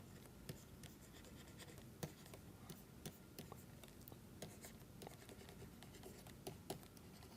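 Faint writing: a pen tapping and scratching in short strokes over quiet room tone.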